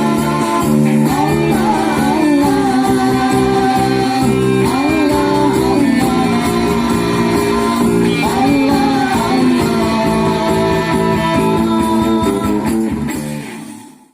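Sholawat devotional song: voices singing wavering melodic phrases over sustained instrumental chords, fading out near the end.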